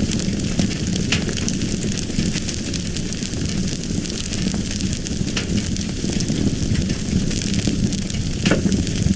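Fire burning with a steady low rumble and hiss, broken by scattered sharp crackles and pops.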